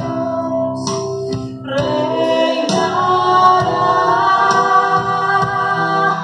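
Live worship song from a small church band: women singing into microphones over acoustic guitar and held accompaniment notes, with the voices coming in strongly about two seconds in.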